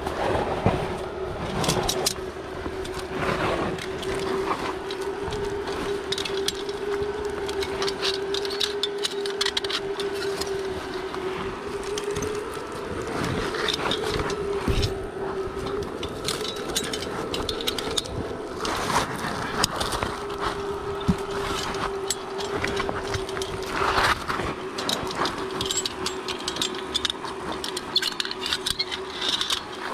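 Rustling of branches and leaves and clicks of metal climbing gear as a climber on ropes grips shrubs and handles carabiners on a cliff face, over a steady low hum that breaks off for a couple of seconds midway.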